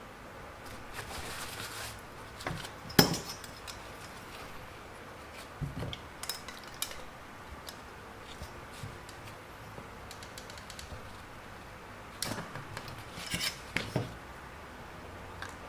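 Scattered clinks and knocks of hard objects handled against a pan or dish, with the sharpest knock about three seconds in and clusters of lighter clicks around six and thirteen seconds.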